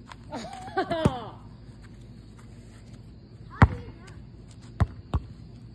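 A basketball bouncing on an asphalt driveway: sharp single bounces, the loudest about three and a half seconds in and two more close together near the end. A person's voice calls out in the first second.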